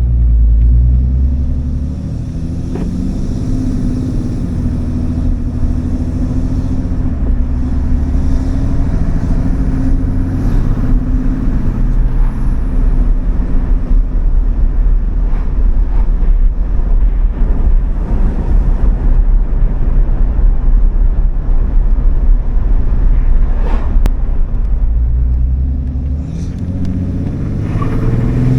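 A 2019 Ram 3500's 6.7-litre Cummins turbo-diesel running on a test drive after a Banks Monster Ram intake was fitted: a deep rumble whose engine note climbs slowly through the first ten seconds, settles into a steadier, noisier rumble, and comes back strongly near the end.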